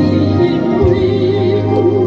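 Worship music: a voice singing over sustained instrumental accompaniment with a steady low bass.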